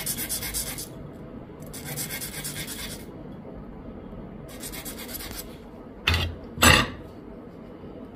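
A small pin being sharpened by rubbing it back and forth on a file or abrasive: three spells of quick rasping strokes. Two sharp knocks, the second louder, come about half a second apart near the end.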